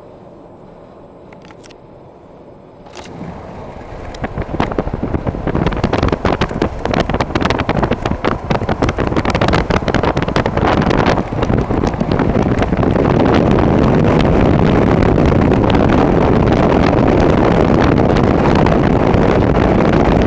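Wind and road noise of a moving car, buffeting the microphone. It jumps up about three seconds in and swells, crackling with gusts through the middle, then settles into a loud steady rush.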